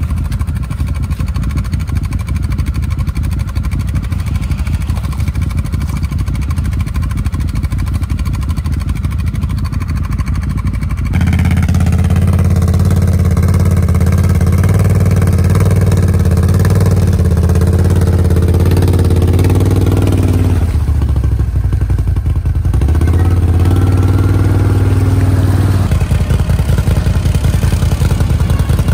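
A vehicle engine running hard, a fast pulsing drone. It gets suddenly louder and heavier about a third of the way in, dips briefly around two-thirds through, then surges again before easing slightly near the end.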